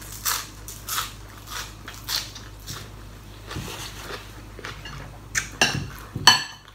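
Close-up crisp biting and crunchy chewing of a raw green pod vegetable. A run of sharp crunches comes about every half second, fades in the middle, and ends with a few louder crunches near the end.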